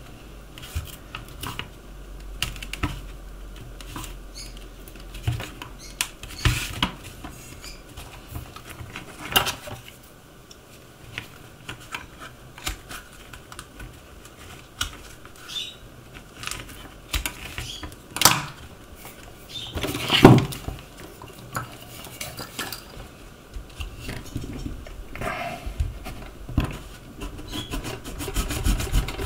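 Irregular clicks, taps and clattering knocks of hand tools and shoe parts handled on a workbench during shoe resoling, with two louder knocks about two-thirds of the way through.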